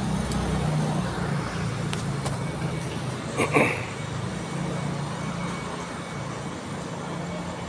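Steady low hum of an engine running, over a haze of traffic and street noise, with one short loud knock about three and a half seconds in.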